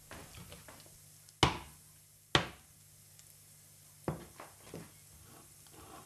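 Glass bowl knocking against a hard surface as it is handled: two sharp, loud knocks about a second apart, then three lighter knocks in quick succession about four seconds in.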